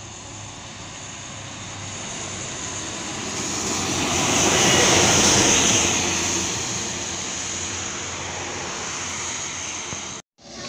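Škoda 15Tr articulated trolleybus approaching and passing close by on a wet road. It grows louder to a peak about five seconds in, with a high hiss, then fades away. The sound cuts out briefly near the end.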